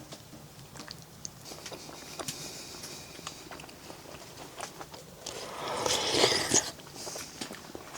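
A person eating: small clicks and chewing sounds, with a louder rustle from about five to nearly seven seconds in.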